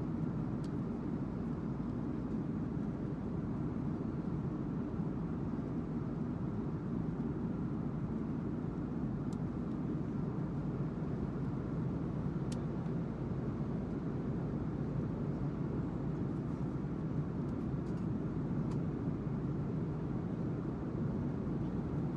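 Steady low cabin noise of an Airbus A330-200 airliner in flight, the hum of engines and airflow, with a few faint clicks.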